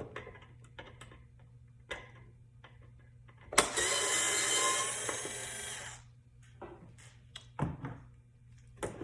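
Power drill/driver running for about two and a half seconds, starting with a sharp click, as it backs a Phillips-head screw out of a console bracket. Light clicks and taps of handling the plastic console come before and after.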